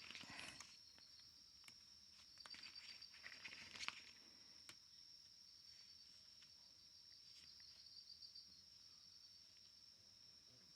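Faint night insects, crickets, chirping: a steady high trill with short pulsed bursts now and then. A few soft rustles and light clicks come between about two and four seconds in.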